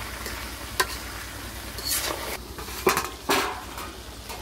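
Metal spatula stirring chunks of duck meat and potato in a wok, scraping and knocking against the pan: four sharp clinks spread over the few seconds, over a low steady hiss.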